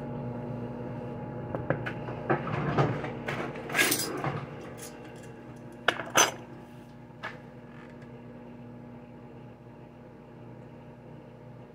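Dishes and utensils clattering on a kitchen counter: a run of knocks about two to four seconds in, then two sharp clinks about six seconds in, over the steady hum of a microwave oven running.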